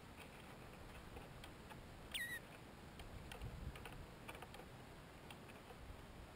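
Faint, scattered dry ticks and rustles at a Cape Rockjumper's grass-lined nest, with one short whistled bird call that falls in pitch about two seconds in.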